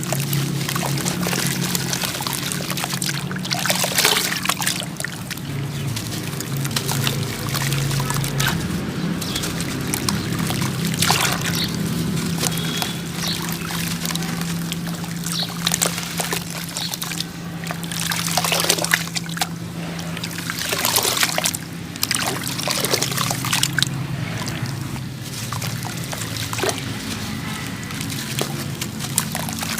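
Sand-cement chunks crumbling in water: irregular wet crunches, trickles and splashes, several sharper ones scattered through.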